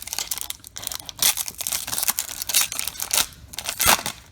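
Foil baseball-card pack wrapper being crinkled and torn open: a run of irregular crackly rustles, loudest just before the end.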